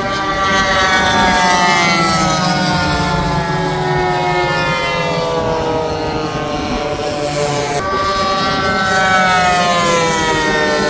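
Radio-controlled model airplane's engine running with a steady whine whose pitch slowly falls, jumps back up about eight seconds in, then falls again as the plane flies past.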